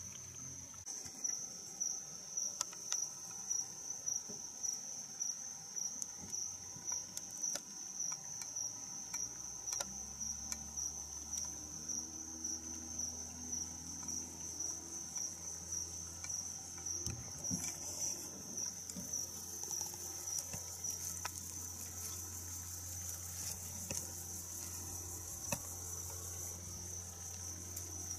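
Insects chirping in a high, steady, finely pulsing trill, with irregular sharp clicks over it. A low steady drone joins about a third of the way through.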